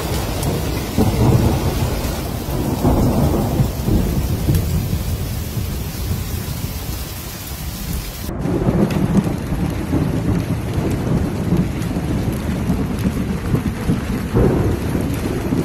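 Thunder rumbling in long rolling waves over steady rain, during a night thunderstorm. About eight seconds in the recording changes as one clip cuts to the next, and the rumble swells again.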